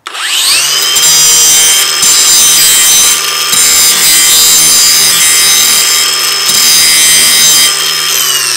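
Ryobi cordless angle grinder spinning up with a quickly rising whine, then grinding the edge of a steel lawn mower blade to sharpen it. The grinding note breaks in and out a few times as the disc is pressed on and eased off, and the whine starts to fall at the very end as the motor winds down.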